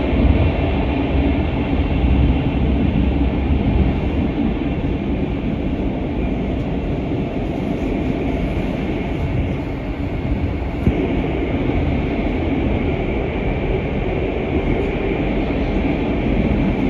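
GTX-A train running, heard from inside the carriage as a steady, continuous rumble.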